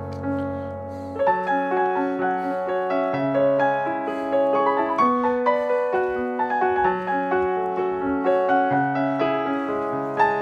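Piano music: a melody of single notes over held bass notes, with a new phrase starting about a second in.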